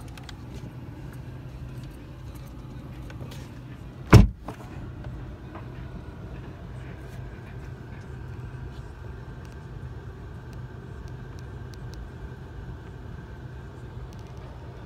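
A car door slams shut with one loud thump about four seconds in, over a steady low hum.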